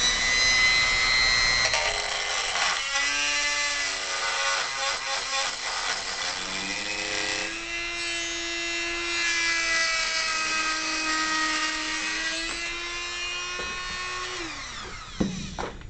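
Dremel rotary tool running at high speed and cutting through a drain snake. It makes a steady high whine whose pitch shifts as the tool bites into the metal, then winds down and stops near the end.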